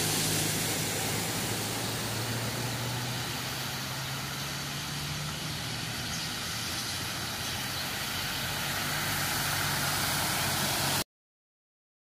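Motor vehicles on a flooded road: a steady low engine hum under a constant hiss. It cuts off suddenly near the end.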